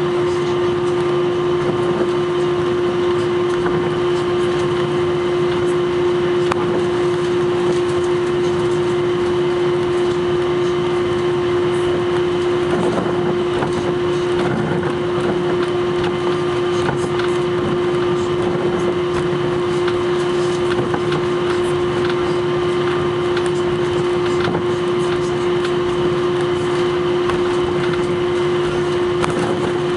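Steady droning cabin noise of an Airbus A321 taxiing, heard from inside the cabin: an even rush of engine and air noise with one strong, steady hum.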